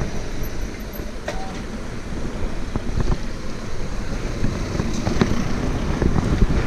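Gravel bike rolling over wet city pavement, with wind rushing on the microphone, a steady rumble from the tyres, and scattered clicks and rattles from the bike.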